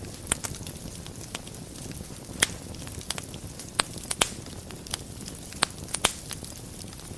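Wood fire burning in a fireplace: a steady low rumble of flames with sharp, irregular crackles and pops scattered throughout, a few standing out louder.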